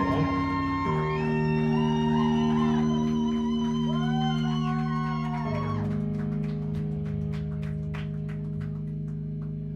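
Live rock band with electric guitars and bass guitar holding long sustained notes, a higher guitar line sliding and bending over them. The sound slowly fades, then cuts off suddenly at the end.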